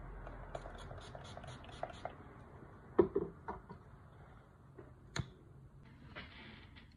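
A quick run of about eight short spritzes from a hand pump spray bottle, then sharp metal clicks and clacks as a shavette straight razor is handled and opened, the loudest about three seconds in, and a brief crinkle of a razor-blade wrapper near the end.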